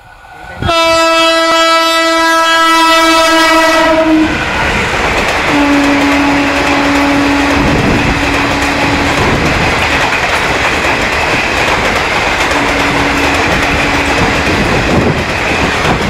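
WCAM1 electric locomotive's horn sounding one long blast of about three and a half seconds as the passenger train approaches at speed, then the loud rush and clickety-clack of the coaches running past. Two more, lower horn notes sound about six and thirteen seconds in.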